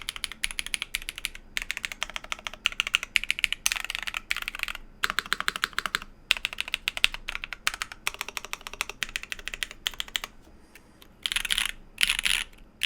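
Typing on an ASCII-F prototype mechanical keyboard with an aluminium case and plate, factory-lubed BSUN BCP switches and GMK keycaps: quick runs of key clicks in word-length bursts with short pauses between. Near the end come a few louder, denser bursts.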